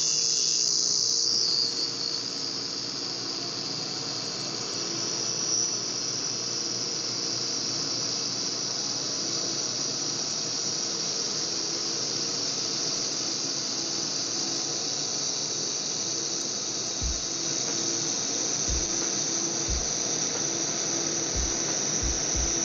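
THEO MA1 handheld fiber laser welder running a fillet weld on 1/8-inch stainless steel with 308L filler wire fed in: a loud, steady, high-pitched hissing whine for the length of the weld. A few soft low knocks come near the end.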